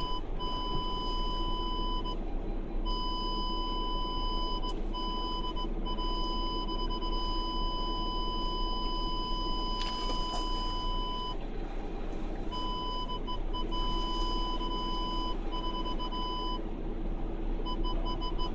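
Car driving slowly over a rough dirt track, heard from inside the cabin as a steady low rumble, with a high electronic beep tone that sounds in long stretches and cuts out several times at irregular moments.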